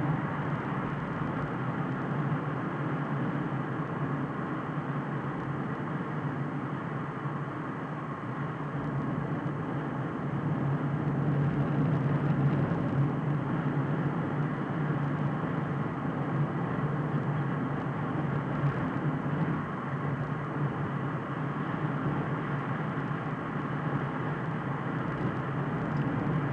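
A car driving steadily along a road, heard from inside the cabin: a steady hum of engine and tyre noise that swells a little about ten seconds in.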